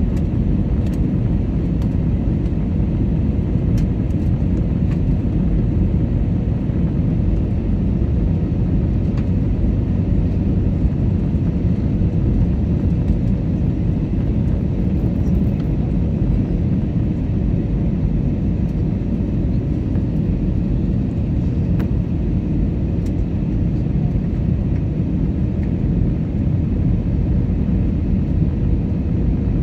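Steady low rumble of airliner cabin noise inside an Airbus A320neo, from its engines and the airflow over the fuselage, in cruise-to-descent flight. A faint steady hum runs under it.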